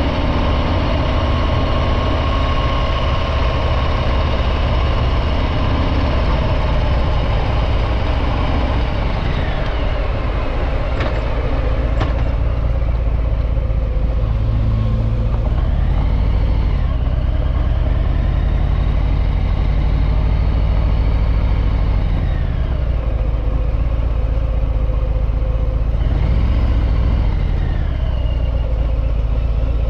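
Harley-Davidson Breakout 114's Milwaukee-Eight 114 V-twin running through its stock exhaust while riding, the engine note rising and falling with throttle and gear changes.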